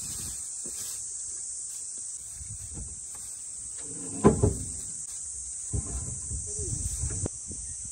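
Steady high-pitched chirring of insects, with handling noise from the boxes and plastic: a short, loud knock-like sound about four seconds in, and more handling noise between about six and seven seconds.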